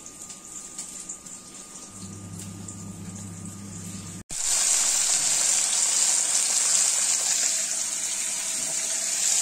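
Turmeric-coated hilsa fish pieces sizzling in hot oil in a pan, a loud steady hiss that starts suddenly about four seconds in, after a quieter stretch with a faint low hum.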